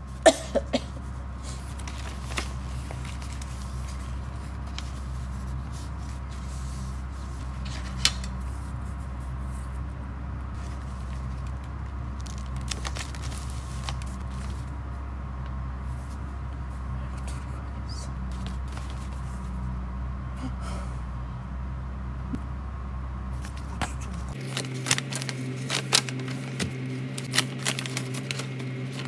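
Paper and envelopes rustling and crackling as tape-sealed mail is pulled open and sorted by hand, with a few sharp clicks and a busier patch of handling near the end, over a steady low hum.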